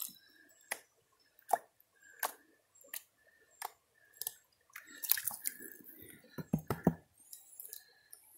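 A plastic gold pan being shaken and dipped in shallow creek water: water sloshes and wet gravel rattles in the pan, in short strokes about every 0.7 seconds, with a quicker run of louder splashes past the middle.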